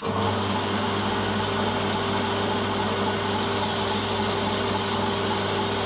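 Small bench metal lathe running steadily with an even motor and gear hum. About three seconds in a higher hiss joins it as a strip of aluminium oxide emery cloth is held flat against the spinning bar to smooth it.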